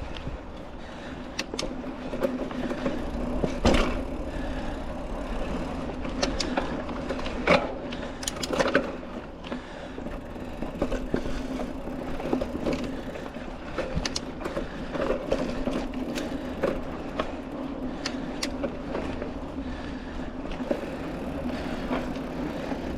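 Mountain bike with tubeless tyres riding over a dirt trail: a steady rolling drone of tyres and drivetrain, with frequent small rattles and sharp knocks from bumps, the loudest about four seconds in and again around eight seconds.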